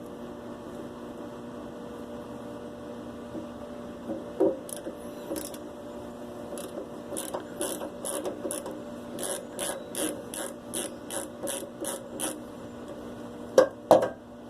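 Ratchet mechanism of a Mac AXIS ratchet clicking as it is turned, about three clicks a second, over a steady low hum. Two louder knocks come near the end.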